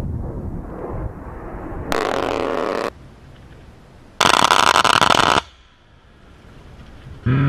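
A-10 Warthog's GAU-8 Avenger 30 mm rotary cannon firing. Jet rumble, then a one-second burst about two seconds in, then a louder dense crackle of 30 mm rounds striking around the target about four seconds in. The gun's low buzzing burst starts again near the end.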